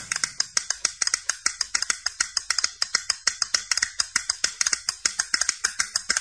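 A fast, even run of sharp percussive clicks or rattles, about eight a second, bright and thin, with no bass, melody or voice. This is a bare rhythm break in the song before the full band comes back in.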